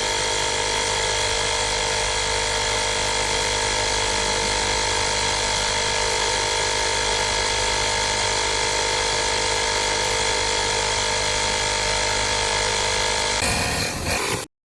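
Cordless portable tire inflator's compressor running steadily, a loud even mechanical drone with a whine on top; the sound shifts about a second before the end and then cuts off suddenly.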